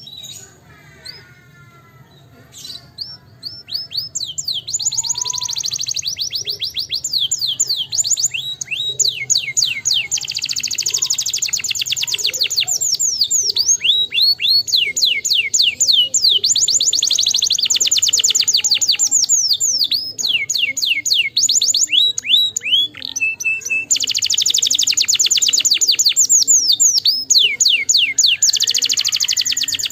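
Domestic canary singing: after a few soft notes, a long, loud song of rapid trills and quick sweeping whistles starts about three seconds in and runs on with only brief breaks.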